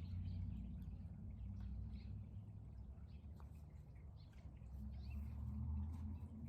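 Wild birds chirping in short, scattered calls over a steady low rumble.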